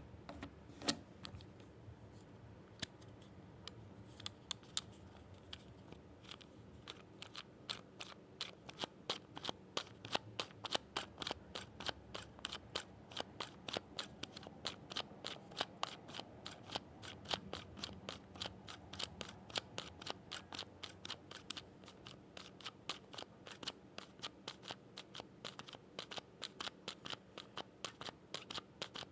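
A long series of sharp, short clicks: a few scattered ones at first, then a steady run of several a second from about six seconds in.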